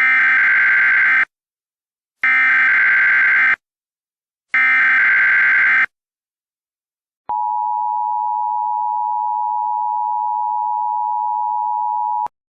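Emergency Alert System broadcast tones: three identical bursts of SAME header data, a buzzing warble of about a second each with short gaps between. After a pause comes the EAS two-tone attention signal (853 and 960 Hz sounded together), held steady for about five seconds before it cuts off.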